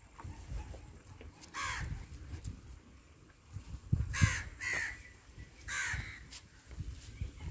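Four harsh, cawing bird calls, typical of a crow, spaced a second or more apart, over a low rumble.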